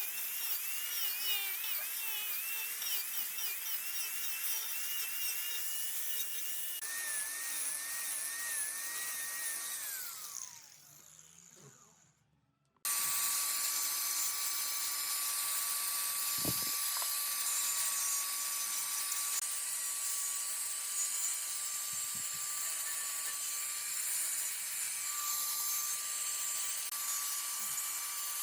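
Wood lathe turning a wood blank, with a tool cutting the spinning wood in a wavering whine over a hiss. About ten seconds in the pitch falls away and it goes nearly silent, then the running and cutting start again abruptly with a steady high tone.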